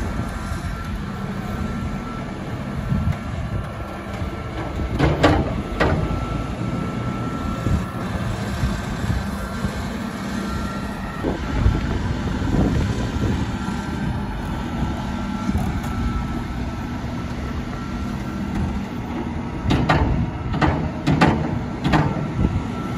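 Farm loader and tractor diesel engines running steadily, with sharp metallic clanks: two about five seconds in and a quick series of four near the end.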